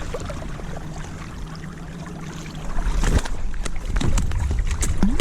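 Water sloshing against a small boat, with a low rumble of wind on the microphone. From about three seconds in it gets louder, with a run of sharp knocks and clicks.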